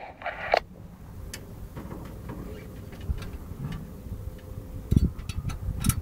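Wind rumbling on the microphone, with scattered light metallic clicks as a microwave link dish's pole mount is tightened by hand, and a couple of dull knocks near the end.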